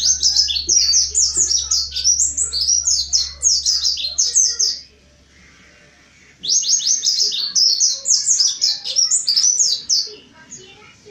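Mountain white-eye singing a fast, chattering song of rapid high sweeping notes, in two long bursts with a pause of about two seconds between.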